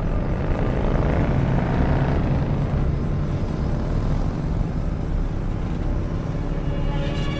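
Car engine and road noise heard from inside the cabin while driving: a steady low rumble, swelling slightly about a second in.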